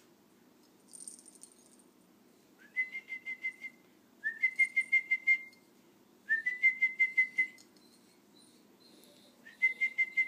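Indian ringneck parakeet giving four runs of rapid, high chirps. Each run starts with a short rising note and then goes into quick pulses on one pitch, about seven a second.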